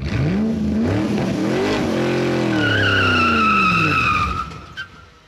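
Car sound effect: an engine revving up and down, joined about two and a half seconds in by a high tyre screech, and both fade out after about four seconds. A short click comes near the end.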